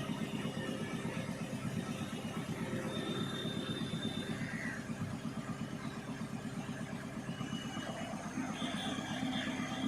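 A mobile crane's diesel engine running steadily, with a fine even pulse. A few brief, thin high tones sound over it now and then.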